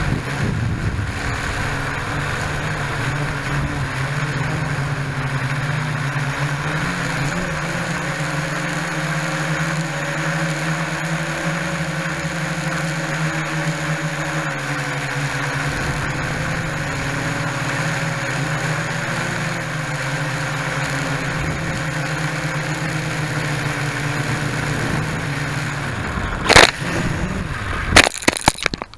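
Small U-807 quadcopter's motors and propellers whining steadily, heard from the camera mounted on it. Near the end it hits a tree: a sharp crack, then a quick cluster of clattering knocks, and the motors stop.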